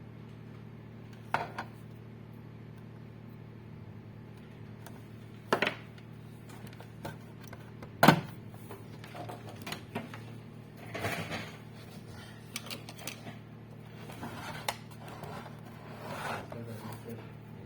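Knocks and clatter of tools and small parts being handled on a workbench, with the sharpest knock about halfway through, over a steady low hum.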